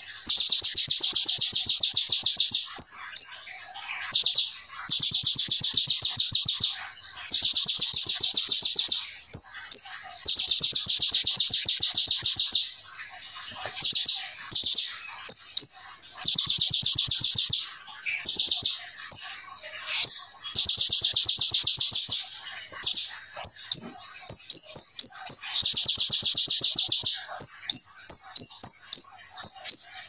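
Kolibri ninja (purple-throated sunbird) singing its fast, high-pitched song in long runs of rapid-fire notes, about two to three seconds each and repeated about six times, with quick chirps and short whistled glides in the gaps between. The song is filled with learned ciblek (bar-winged prinia) phrases.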